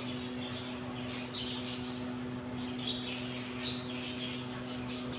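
Irregular short, high chirps from small animals, over a steady low hum.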